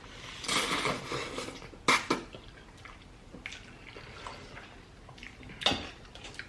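Close-up eating sounds during a meal of spaghetti and shrimp: wet mouth and food noises with a few sharp clicks of utensils, and a brief hissing rustle about half a second in.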